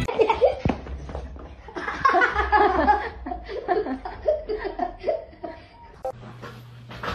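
Human laughter in repeated bursts, strongest about two to three seconds in and stopping about six seconds in, after which a low steady hum remains.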